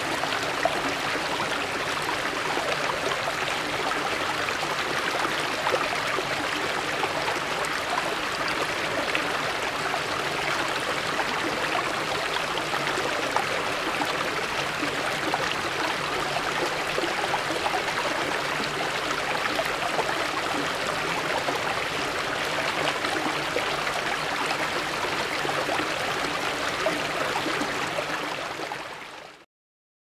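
Small mountain stream running over stepped rocks and little cascades: a steady rush of babbling, splashing water. It fades out near the end.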